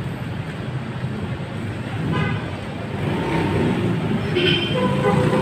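Rusi Mojo 110cc motorcycle's small single-cylinder engine idling steadily, with a brief horn-like toot about four and a half seconds in.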